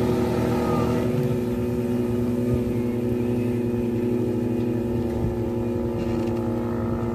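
Fibreglass jet boat's car engine, driving a jetski water jet, running steadily at speed with an even, unchanging pitch. The sound fades slightly as the boat moves away.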